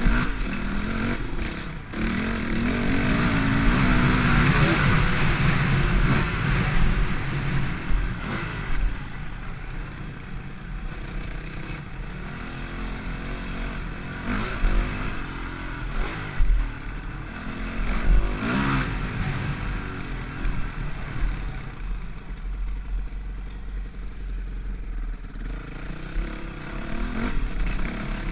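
Dirt bike engine riding a rough trail, rising in pitch as the throttle opens early on, then revving up and down through the middle, with short knocks and rattles from the bumpy ground.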